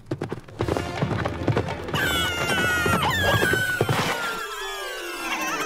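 Cartoon soundtrack: music with quick, even clip-clop footstep effects for the first two seconds, then wavering, gliding high tones and a long downward slide.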